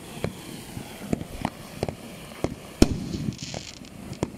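Bright Star BS5015 'Fire Lollipop' handheld firework fountain burning: a steady hiss of spraying sparks broken by irregular sharp crackling pops, a few a second. The loudest pop comes a little before three seconds in.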